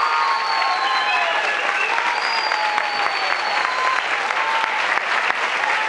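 Audience applauding steadily after the music stops, with voices calling out over the clapping.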